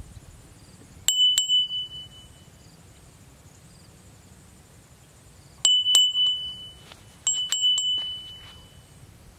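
A small high-pitched metal bell rung in quick groups, each ring fading over about a second: two rings about a second in, two more a little past the middle, then three close together. A faint low rumble runs underneath.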